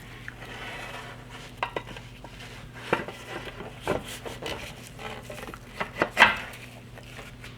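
Metal rifle parts of a Mosin-Nagant being handled and fitted into the wooden stock during reassembly: scattered light clicks and knocks of metal on wood and metal, the loudest a few seconds apart.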